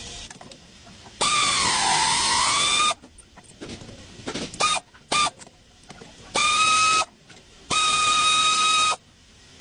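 Vehicle brakes squealing in bursts: a long squeal about a second in whose pitch dips and comes back up, two short chirps, then two steady squeals of about a second each.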